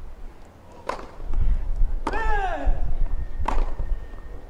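Tennis racket strokes on a ball in a rally: a serve struck about a second in, a return about two seconds in with a short vocal grunt falling in pitch, and another hit near the end.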